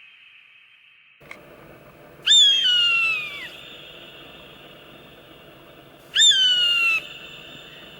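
Recorded bird of prey screaming twice, each scream a harsh, loud call that starts high and slides down over about a second, the second coming about four seconds after the first. A faint click sounds just before the first scream.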